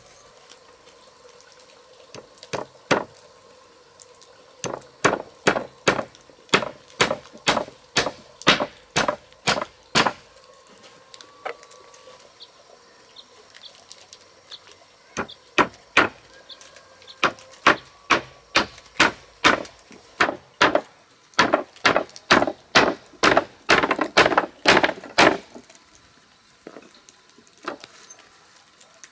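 Hammer driving nails into round wooden poles: sharp, even blows about two a second, in two runs with a pause of a few seconds between them.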